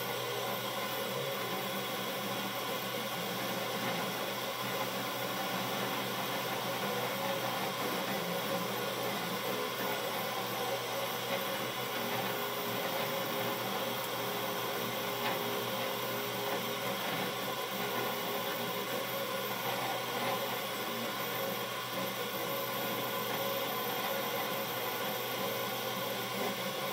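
UP! Mini 3D printer running mid-print: a steady whir with several steady humming tones from its fans and head-drive motors.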